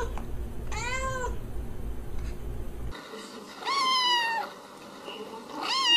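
A calico cat meows once, then a ginger-and-white kitten, having its belly rubbed, gives two higher-pitched meows.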